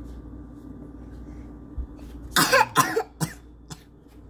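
A person coughing close to the microphone: a short fit of about four coughs, starting a little past halfway.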